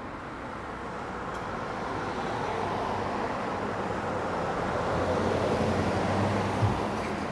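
Road traffic: a car's tyre and engine noise swelling as it approaches and passes, loudest about five to six seconds in, over a steady traffic hum. A brief low thump comes near the end.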